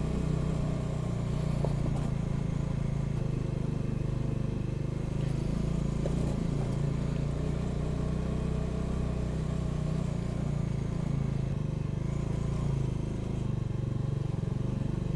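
Motorcycle engine running steadily at low road speed on a rough dirt and gravel track, with a few faint clicks.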